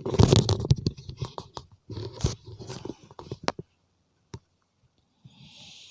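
Handling noise: rustling, scraping and knocking for about three and a half seconds, then quiet apart from a single click and a soft hiss near the end.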